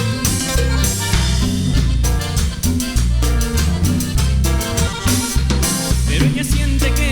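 A Latin band plays an instrumental break with no singing: steady bass, drum kit and a melody line, which slides in pitch about six seconds in.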